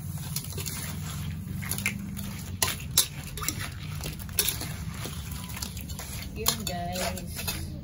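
Metal spatula scraping and clinking against a metal wok as cooked crabs in butter sauce are tossed. There are several sharp knocks over a steady low hum.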